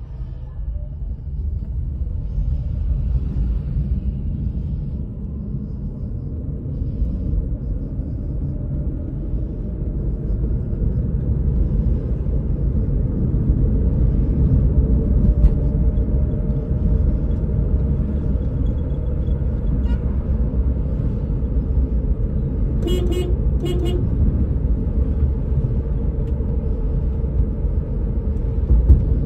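Road and tyre rumble heard inside the cabin of a Tata Nano EV on the move, with no engine sound, only a faint steady hum; the rumble builds over the first several seconds. Two short car-horn toots sound close together about two-thirds of the way through.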